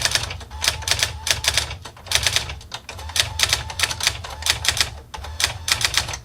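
Brother SX-4000 electronic daisywheel typewriter printing a line of test typing: rapid runs of sharp print-hammer strikes in bursts with short pauses, over a steady low machine hum.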